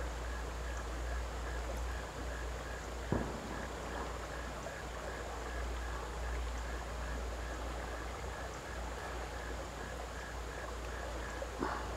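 Outdoor ambience at a creek's edge: a steady low rumble and hiss with a faint, evenly repeating chirp throughout, and a single sharp click about three seconds in.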